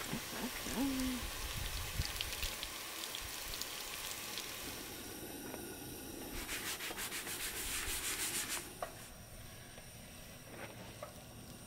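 Water from a battery-powered pump dispenser splashing over hands being washed. About six seconds in come fast rubbing strokes, about four a second for a couple of seconds, as the plastic cutting board is washed.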